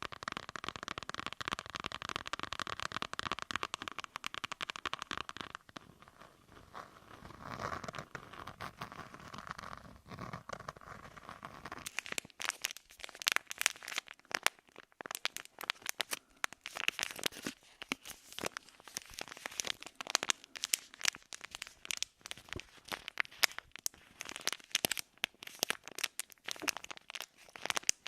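Close-miked ASMR crinkling and crackling trigger sounds. A dense, even crackle gives way after about five seconds to softer rustling, then from about twelve seconds to sharp, irregular crackles and clicks.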